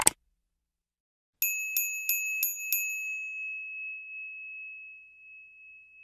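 Bell sound effect for a 'click the bell' prompt: a short sharp click right at the start, then a bright bell struck five times in quick succession, its tone ringing on and slowly fading.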